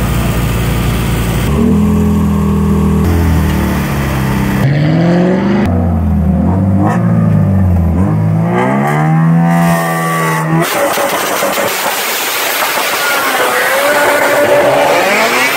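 Car engine revving repeatedly, its pitch climbing and dropping over several seconds. About ten seconds in it gives way to a louder, rushing noise with a faint rising engine note.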